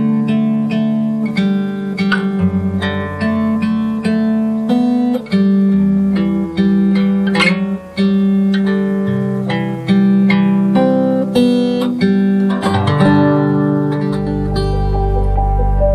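Acoustic guitar playing a slow melody of plucked notes and chords. A deep sustained bass note comes in near the end.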